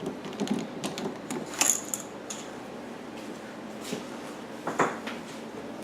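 Scattered small clicks and clinks of a screwdriver working the Phillips screw out of the generator's fuel selector knob, with a sharper click about two seconds in and another near the end.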